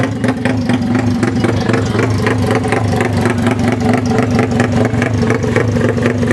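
Yamaha MX King 150 motorcycle's single-cylinder four-stroke engine running at a steady speed with a fast, choppy, helicopter-like pulse.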